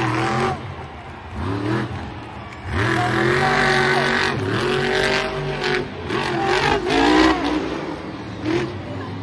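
Monster truck's supercharged V8 engine revved hard again and again in short bursts, its pitch sweeping up and down as the truck spins and wheelies on the dirt.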